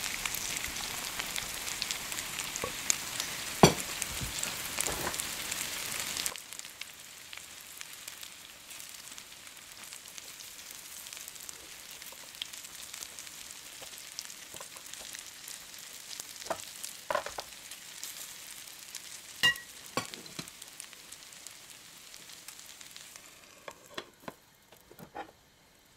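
Food frying in a frying pan, a steady sizzle. It is loud for about the first six seconds, then suddenly drops to a quieter hiss. A few sharp clicks and taps sound over it.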